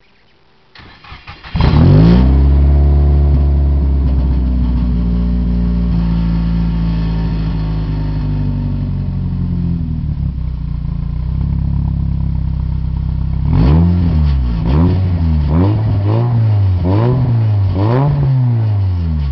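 Nissan Silvia S15 Spec R's turbocharged four-cylinder, breathing through a GARAGE MAK Revo exhaust with an inner silencer fitted, cranks briefly, starts about a second and a half in with a short rev flare, then settles to a steady idle. Near the end it is blipped about six times in quick succession.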